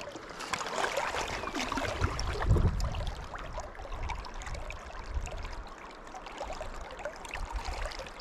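River current flowing and splashing close by, a steady rush with small crackling splashes and a brief low rumble about two and a half seconds in.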